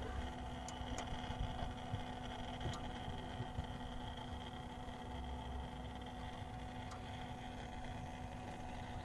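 Steady mechanical grinding hum from a Mini Cooper S R56 after it is switched off, with a few faint ticks about a second, three seconds and seven seconds in.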